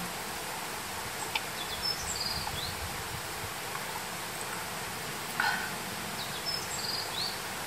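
Steady outdoor drone of insects, with a small bird calling twice: a short high-pitched chirping phrase about two seconds in and again near the end.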